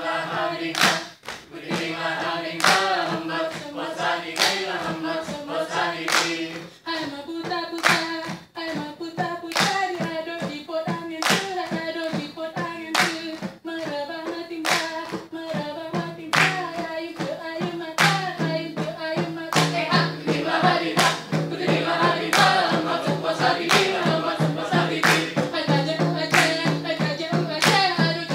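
Saman dance troupe singing in unison while clapping their hands and slapping their chests in sharp, rhythmic strokes, the claps coming more thickly in the second half.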